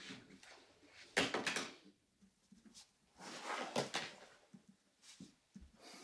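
Two short scraping and rustling noises of objects handled at an office desk, one starting suddenly about a second in and a longer one about three seconds in.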